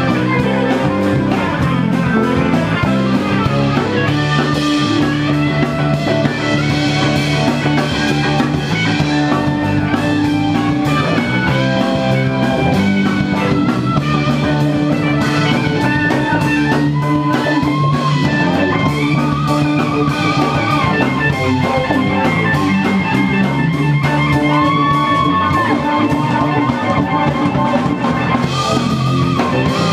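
Live rock band playing a loud, steady jam on electric guitars, bass guitar and drum kit, with no vocals.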